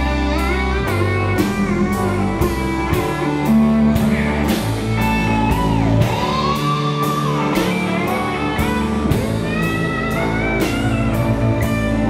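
Alt-country band instrumental break: a lap steel guitar plays a lead that slides and swoops between notes, over electric guitar, upright bass and drums keeping a steady beat.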